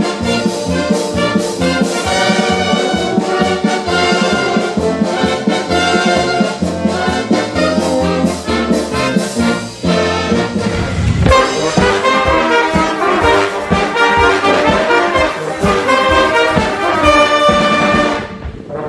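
Military brass band music: trumpets, trombones and saxophones with drums and a low bass line. About ten seconds in, the music changes abruptly to a different brass-led passage, and it dips briefly near the end.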